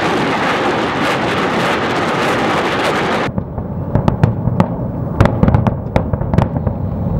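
A rocket salvo from truck-mounted multiple rocket launchers: a continuous rushing roar of rocket motors that cuts off about three seconds in. Then comes a rapid string of many sharp explosions over a rumble as the rockets strike the hillside.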